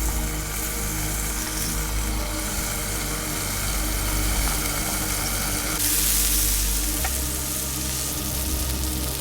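Food frying and sizzling in a pan, briefly louder about six seconds in, over background music.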